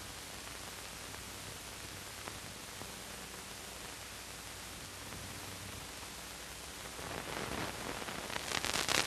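Steady hiss of an old optical film soundtrack. From about seven seconds in, a louder, irregular crackling patter builds up near the end.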